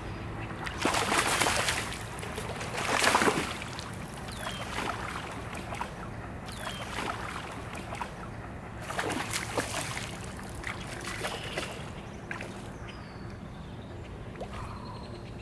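A hooked smallmouth bass thrashing and splashing at the surface close to the bank in several short bursts while it is played in and landed. A few faint bird chirps come near the end.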